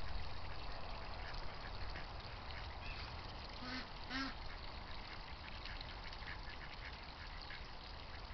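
Domestic ducks quacking, two short quacks close together about four seconds in, over a steady outdoor hiss and low rumble.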